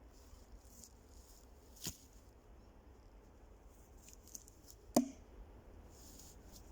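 Two sharp knocks about three seconds apart, the second louder with a brief low ring, over faint intermittent rustling.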